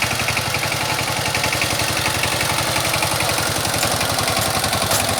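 Sifang power tiller's single-cylinder diesel engine running steadily at idle, with an even, rapid beat and a clattering knock.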